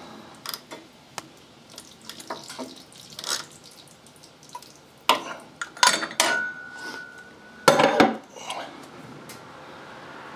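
Metal clinking and clattering from hand work on an oil filter during a motorcycle oil change. Scattered light clicks, with louder knocks about five to six seconds in and again near eight seconds.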